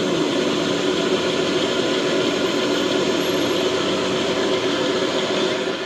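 Motor-driven disc mill grinding soaked rice and horchata ingredients into a wet paste, running with a steady mechanical hum and cutting off at the very end. The grinding plates have been tightened for a finer second pass.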